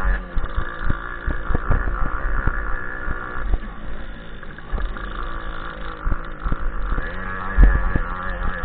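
Dirt bike's engine running hard over a rough forest trail, easing off for a few seconds in the middle and picking up again near the end, with frequent knocks and rattles from the bike over bumps.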